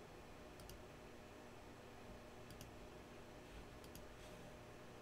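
Near silence with a faint steady hum, broken by three quiet double clicks of a computer mouse.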